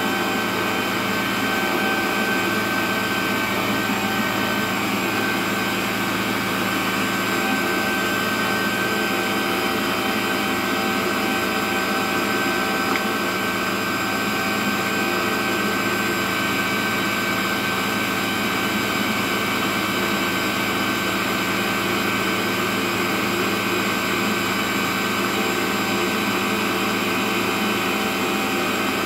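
Stand mixer's electric meat-grinder attachment running steadily under load as it minces raw meat with herbs. It makes an even motor drone with several steady tones and does not change in pitch or level.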